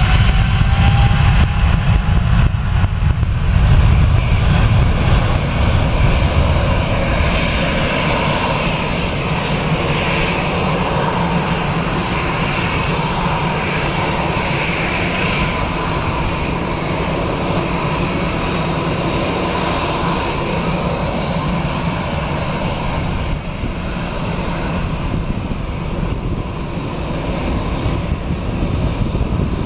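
A Boeing 777-300ER's GE90 engines with a heavy, deep rumble as it rolls along the runway for the first six or seven seconds, giving way to the steadier, lighter whine of an Airbus A320-family jet's engines at idle as it taxis.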